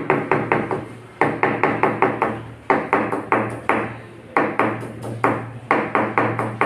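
Kitchen knife chopping ginger on a cutting board: quick runs of about five sharp knocks, with a brief pause between runs, repeating about every second and a half.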